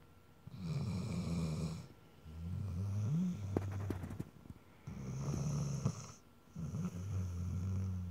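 Snoring: about four long, low, rasping snore breaths with short pauses between them, and a burst of clicks near the middle.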